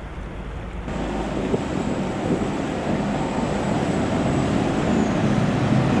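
A Thames Clippers Uber Boat catamaran passing on the river: a steady rush of engine and water that grows louder about a second in, with a thin high whine that dips in pitch about five seconds in.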